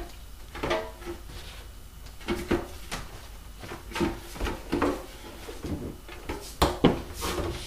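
Scattered light knocks and taps of handling as hinge joints are pressed into a large Redwing RC Slick 540 wing and the wing is shifted against the workbench. The loudest knocks come near the end.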